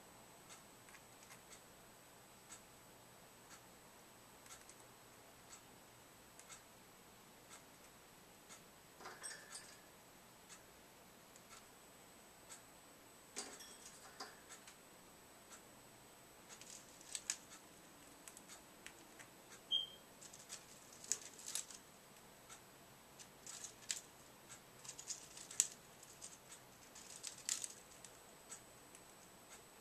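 Faint scratching and clicking of a parrotlet's claws and beak on the wire of its cage as it clambers and clings there rather than perching, a sign of its balance trouble. Scattered at first, then in frequent bursts through the second half.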